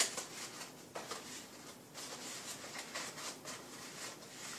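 Paper pieces rustling and crinkling in the hands as they are bent and slotted together into an interlocking paper lamp, with irregular small scrapes and clicks.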